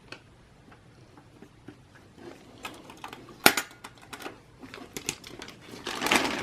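Hands handling computer parts on a bench: scattered light clicks and taps, one sharp click about three and a half seconds in, then a crinkling rustle near the end.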